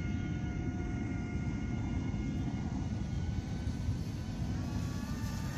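Electric motor whine of an MHZ Micro Iceberg RC speedboat running on a 4S battery out on the water. A steady pitched whine fades over the first couple of seconds, then climbs in pitch and grows louder near the end as the throttle is opened. A low rumbling noise runs underneath.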